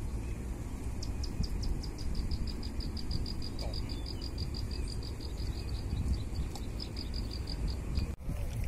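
An insect chirping high and fast, about six even chirps a second, starting about a second in and stopping near the end, over a steady low rumble.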